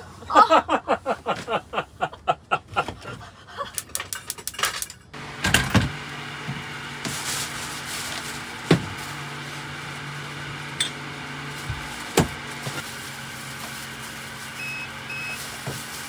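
A quick run of loud pulses and clicks for about five seconds, then a steady low hum with a few sharp knocks of a frying pan and utensils. Near the end come two short, high beeps from the camper van's refrigerator alarm, the warning that the fridge has shut off.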